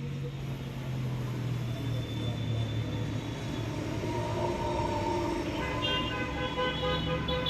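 Passing vehicle noise: a steady low rumble, with a horn-like pitched tone sounding over it in the last second and a half or so.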